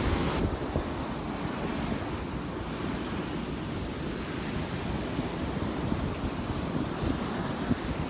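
Waves breaking and washing up on the beach in a steady wash, with wind rumbling on the microphone.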